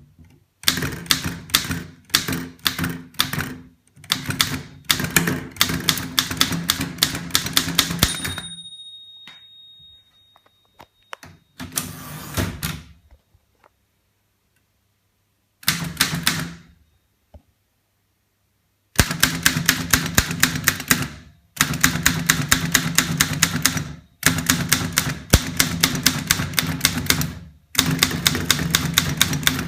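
1921 Underwood Standard No. 5 manual typewriter being typed on: quick runs of sharp typebar strikes in bursts with pauses between them. About eight seconds in, a single ringing tone is heard, the typewriter's margin bell.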